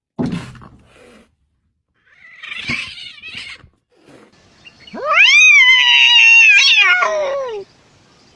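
A cat yowling: one long, loud, drawn-out call about five seconds in that rises quickly and then slowly falls in pitch, after a few shorter, softer noises.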